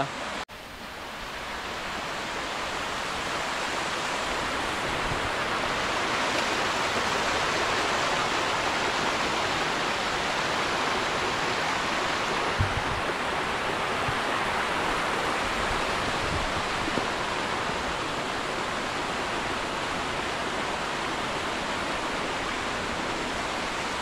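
Rushing water of a monsoon-swollen mountain stream, a steady rushing noise that grows louder over the first few seconds and then holds even.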